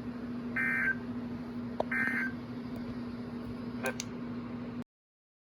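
Emergency Alert System end-of-message code: the last two of three short digital data bursts, about a second and a half apart, marking the end of the alert, over a steady low hum. A couple of faint clicks follow and the sound cuts off suddenly near the end.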